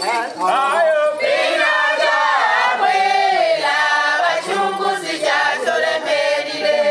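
A Sukuma dance troupe singing a traditional song together in chorus, mostly women's voices.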